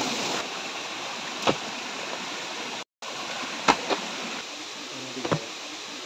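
Steady rush of river water tumbling over rocks at a small waterfall, with three sharp knocks scattered through it. The sound cuts out for a moment about halfway.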